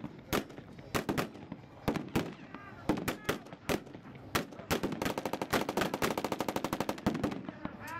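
Blank gunfire in a WWII battle re-enactment: scattered single rifle shots, then a fast machine-gun burst lasting about a second and a half, just past the middle.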